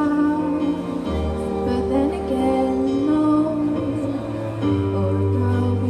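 A singer performing a song live over a backing track, holding long notes.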